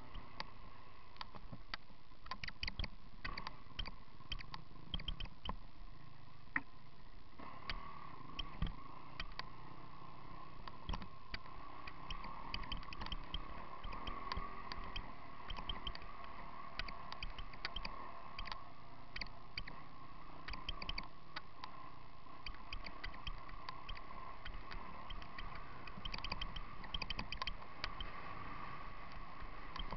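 On-board sound of an enduro bike riding over rough, stony ground: a steady muffled hum with frequent sharp clicks and rattles as the bike and camera mount shake over the bumps.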